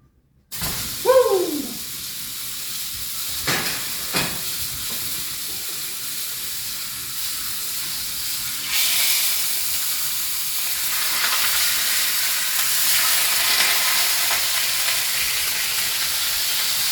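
Food frying in a hot, greasy pan: a steady sizzle that grows louder about nine seconds in, with two sharp knocks a few seconds earlier.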